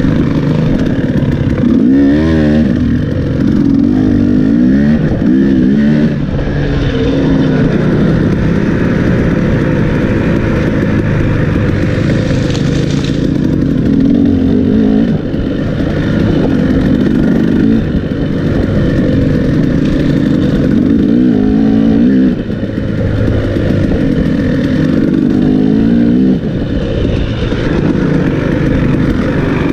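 Enduro dirt bike engine ridden hard off-road, its pitch rising and falling over and over as the throttle is opened and closed.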